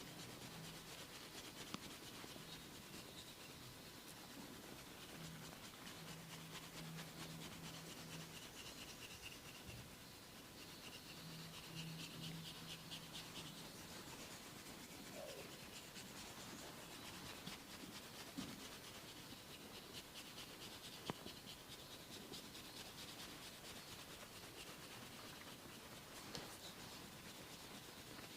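Faint rubbing of a masseur's hands over skin during a body massage, with a few small clicks.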